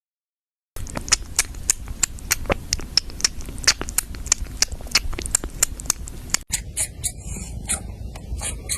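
Rapid, irregular small clicks and taps, several a second, starting just under a second in. They break off briefly about six and a half seconds in, then carry on.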